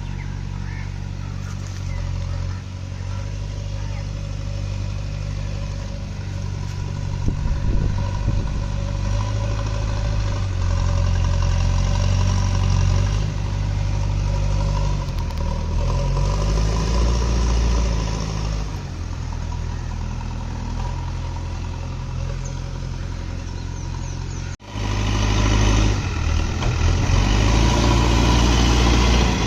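JCB backhoe loader's diesel engine running, its pitch rising and falling as the machine works. The sound breaks off abruptly about 25 seconds in and comes back louder.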